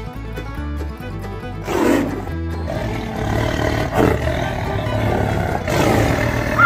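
Tiger roar sound effect over background music, swelling loudest about two seconds in.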